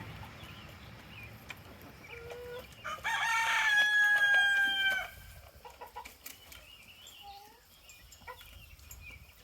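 A rooster crowing once, about three seconds in, a single call held for about two seconds. Chickens cluck faintly around it.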